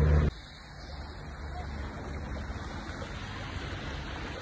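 A loud low rumble cuts off suddenly about a third of a second in, leaving a steady, even outdoor rushing noise.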